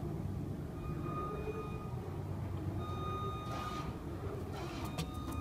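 JLG 2630ES scissor lift's motion alarm beeping as the lift is moved, long tones of about a second each with about a second between, over a steady low rumble. A few sharp clicks near the end.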